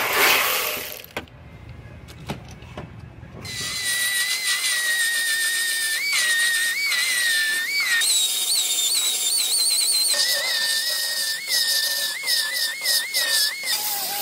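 High-pitched whine of an air-powered die grinder with a small sanding disc grinding down fresh welds on sheet metal, its pitch jumping up briefly again and again as the load comes and goes. It follows a short burst of noise at the start and a few seconds of quieter clicking.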